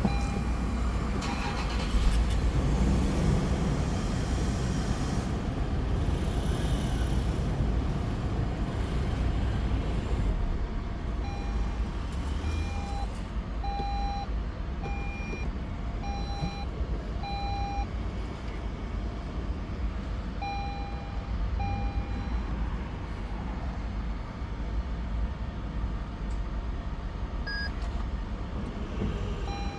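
Toyota Land Cruiser 300 running with a steady low rumble, while an electronic warning chime beeps repeatedly for about ten seconds from roughly a third of the way in.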